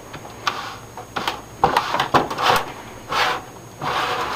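Front section of a Compaq Presario 2200 computer case being worked and slid off by hand: a series of short scrapes and sharp clicks.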